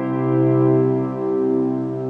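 Grand piano being played in a slow classical passage: a held low bass note under sustained chords that change about once a second.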